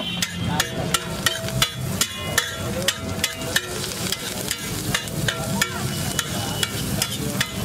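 Metal spatula chopping and scraping egg and vegetables on a flat iron griddle: rapid, uneven metallic clanks, about three a second, each with a short ring.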